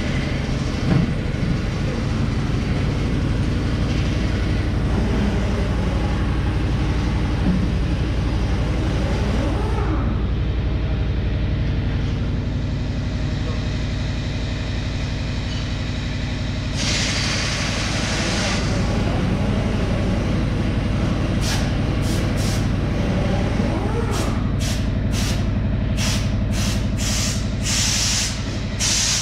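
A large truck engine running steadily. Compressed air hisses out once for about a second and a half about two-thirds of the way in, then in a string of short bursts near the end.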